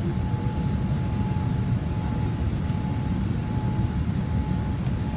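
Steady cabin noise inside a Boeing 787-8 Dreamliner in flight on approach: a deep rumble of engines and airflow, with a thin steady whine above it.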